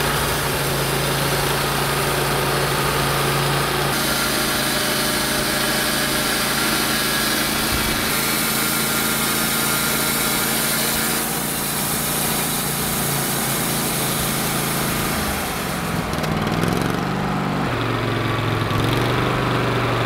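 A portable bandsaw mill's gas engine runs steadily under load while the band blade saws along a log, with a dense cutting hiss over the engine. About sixteen seconds in, the cutting hiss drops away and the engine pitch rises, as the blade comes out of the cut.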